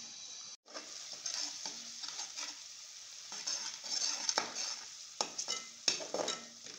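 Chopped onions sizzling in hot oil in a metal kadhai, with a spatula scraping and knocking against the pan as they are stirred. The sound drops out briefly about half a second in.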